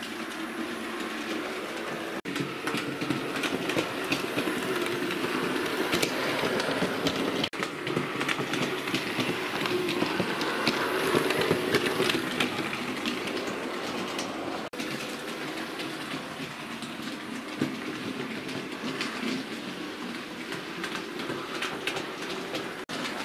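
Hornby OO gauge model steam locomotives and their coaches running on the layout's track: a steady whirr of motors and wheels with light clicking over the rail joints and points. It is loudest about halfway through, as a train passes close by.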